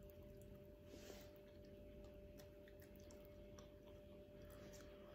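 Near silence: room tone with a faint steady electrical hum and a few faint clicks.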